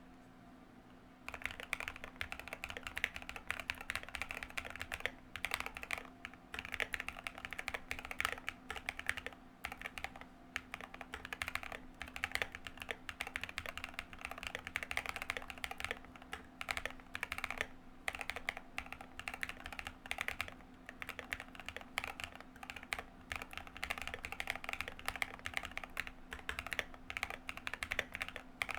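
Fast, continuous typing on a Keychron Q1 mechanical keyboard fitted with lubed NK x Kailh Cream linear switches, MT3 keycaps, case foam and a tape mod. The typing starts about a second in.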